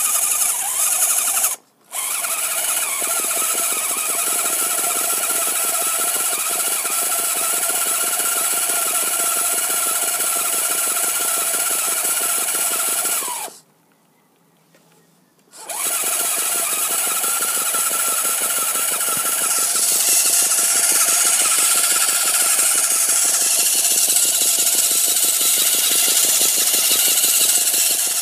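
Electric motor and gearbox of an RC 4x4 rock crawler whining steadily under throttle. It cuts out briefly about two seconds in and again for about two seconds near the middle.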